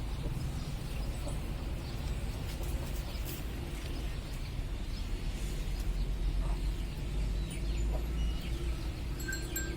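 Outdoor ambience: a steady low rumble with scattered short high chirps and ticks, and a faint steady hum from about halfway through.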